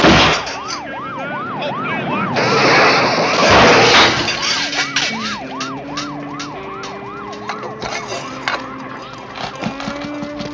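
A loud bang at the start, then a police car siren yelping in quick rising and falling sweeps, about three a second, fading after about seven seconds. A loud noisy burst lasts from about two to four seconds in.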